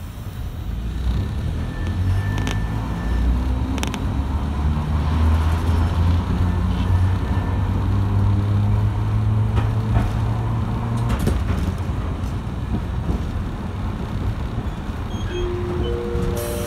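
Tosa Electric Railway streetcar heard from inside as it pulls away and runs: the low hum of its traction motors rises in steps as it accelerates, over steady wheel-on-rail noise with a few clicks. A few short tones sound near the end.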